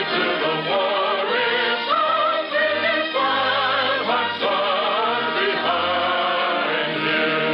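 A choir singing with an orchestra, the musical opening that introduces a radio operetta.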